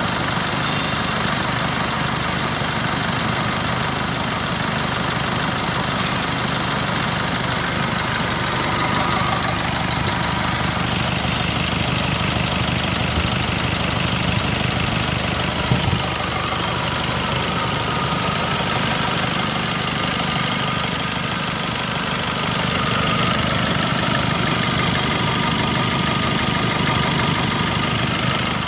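Nissan Navara 2.5-litre turbo-diesel engine idling steadily, with one brief clack about sixteen seconds in.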